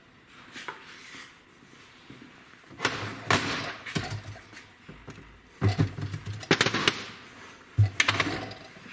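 Steel transmission gear shafts and parts clanking and knocking as they are handled and set down on a workbench. A group of clanks comes about three seconds in, a busier run of knocks around six to seven seconds, and one more near the end.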